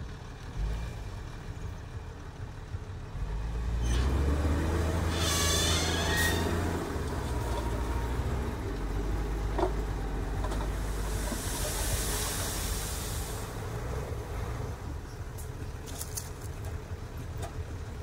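Diesel dump truck engine running, louder from about four seconds in as the tipper bed is raised, with a brief high squeal near five seconds. About twelve seconds in comes a hiss of released air.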